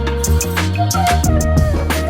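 Background music with drums, deep bass notes and a melody line.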